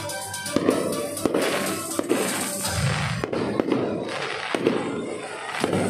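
Aerial fireworks shells bursting in a string of sharp bangs, about one a second, over music playing throughout.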